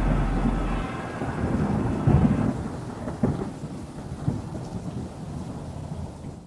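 Music ends about a second in, followed by rolling thunder over a steady hiss of rain, with low rumbles swelling about two, three and four seconds in and the storm fading out at the end.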